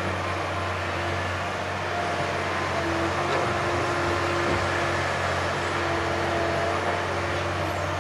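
Diesel engines of a Liebherr 956 crawler excavator and a Volvo FMX dump truck running steadily while the excavator loads clay soil into the truck: a constant low hum, with a whining tone that comes and goes as the hydraulics work.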